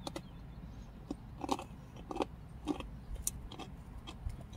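A person chewing Fritos chili cheese corn chips: a series of short, crisp crunches, roughly one every half second to a second.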